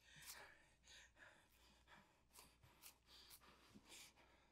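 Near silence: faint room tone with a few brief, soft short sounds.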